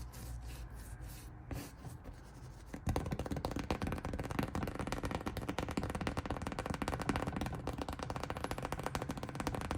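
Dense crackling and scraping, like a rough painted surface being rubbed and scratched by hand. It turns suddenly louder and busier about three seconds in.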